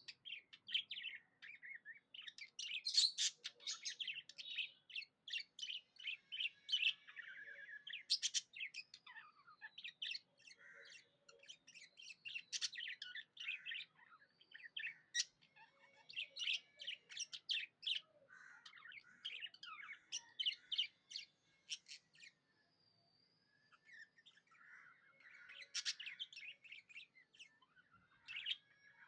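Budgies chattering and warbling in quick runs of chirps, with a short lull a little past the middle.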